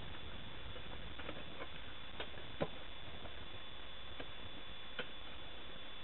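Short-handled digging pick chopping into stony, leaf-strewn creek-bed gravel: scattered irregular clinks and knocks of the blade on rock and soil, the sharpest a little over two and a half seconds in.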